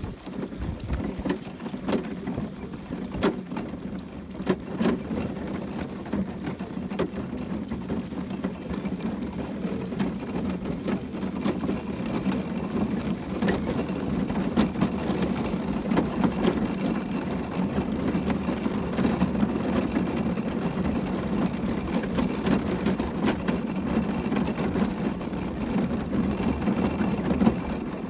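Horse-drawn carriage rattling steadily as a Hackney horse pulls it along a grass track, with rapid clatter from the wheels and harness and scattered sharp clicks.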